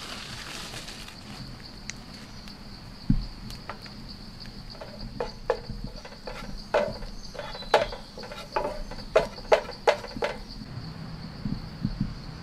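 Insects droning steadily at a high pitch. There is a single low thump about three seconds in, then a run of about a dozen sharp clicks and scrapes from a spatula working in a frying pan.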